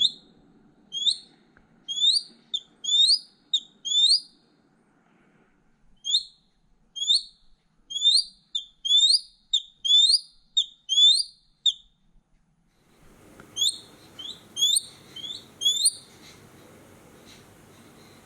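An eagle, apparently a young one, calling in a quick series of short, high, upward-slurred chirps, often two or three close together. The calls stop for about a second near the middle, start again in a shorter run, and then stop.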